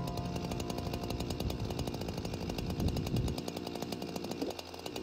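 Chainsaw cutting down through thick lake ice, a fast, even chatter that dips briefly near the end.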